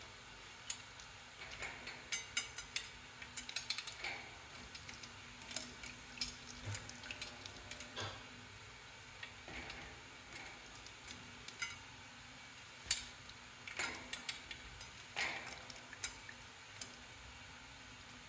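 Cockatoo paddling and splashing in its water dish: irregular small splashes, ticks and clinks against the dish.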